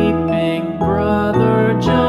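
Music: held pitched notes that change about twice a second.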